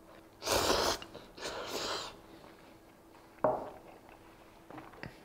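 Instant ramen noodles being slurped up with chopsticks, two hissing slurps of about half a second each, followed by a single sharp click about three and a half seconds in.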